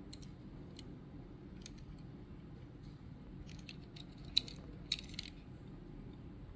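Faint handling noise of fingers turning a die-cast Hot Wheels toy car: a few light clicks and rubs, the sharpest about four and a half seconds in, over a low steady hum.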